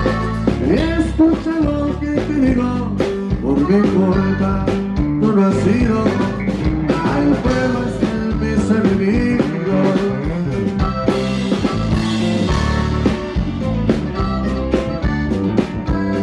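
Live norteño band playing a corrido through a PA: button accordion, guitars, bass and drums with a steady beat.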